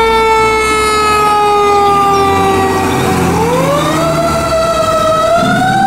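Fire truck siren wailing: its pitch slides slowly down for about three seconds, then rises and holds high, over a low engine rumble.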